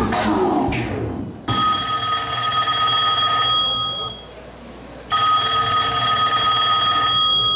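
Hip hop music cuts off about a second and a half in, and a telephone ring sounds twice. Each ring lasts about two and a half seconds, with a one-second pause between them.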